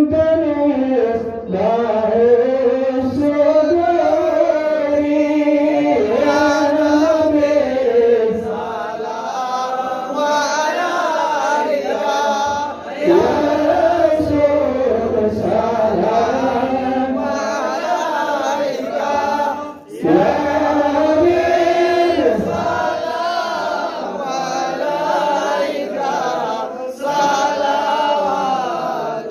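Male voices chanting an Islamic devotional poem in a long, ornamented melody, amplified through handheld microphones. The phrases are held and drawn out, with short breaks for breath about 13 and 20 seconds in.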